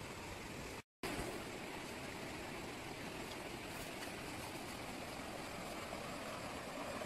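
Steady rushing of a stream, broken by a brief total dropout about a second in.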